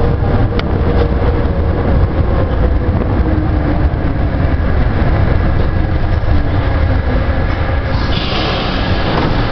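Cabin running noise of a Paris Métro MF67 train slowing into a station: a steady, heavy low rumble of steel wheels and traction gear on the rails, with a hiss rising near the end.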